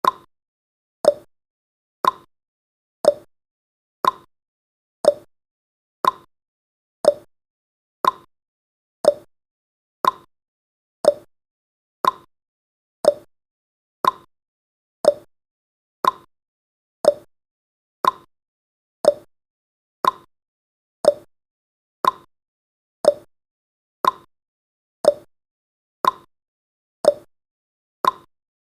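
Countdown timer's clock-tick sound effect: a short, sharp tick once every second, steady and even, with silence between the ticks.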